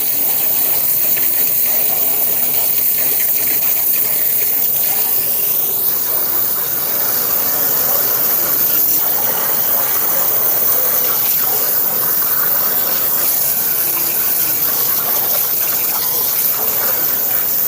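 Steady spray of water hitting the inside of a gas furnace, washing out flood mud.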